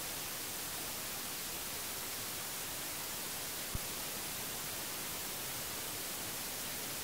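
Steady, even hiss with no other sound in it, apart from a single short click a little under four seconds in.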